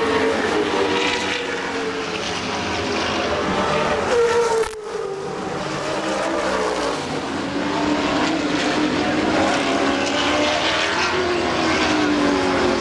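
Race car engines running hard on the circuit, their pitch rising and falling as the cars accelerate, shift and pass. There is a sudden break about five seconds in, then engines carry on.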